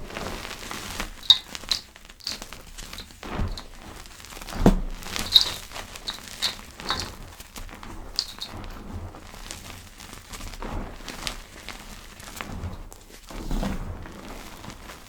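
Packed powder being crushed and squeezed by hand for ASMR, giving irregular soft crackles and crunches with small squeaky blips and a few soft thumps. The loudest thump comes nearly five seconds in.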